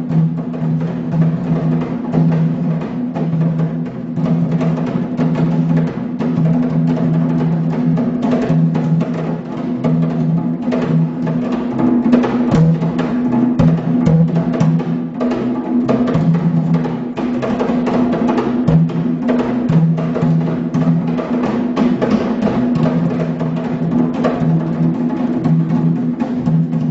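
Ugandan Kiganda drums of the Buganda royal tradition played by hand as an ensemble, in a fast, dense, steady rhythm.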